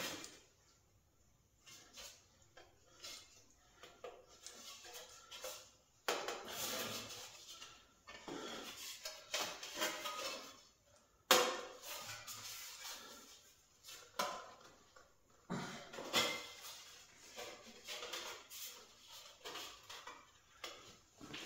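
Thin stainless steel sheet being handled and bent round into a cone: irregular clanks, rattles and scraping of the metal, with one sharp clank about eleven seconds in.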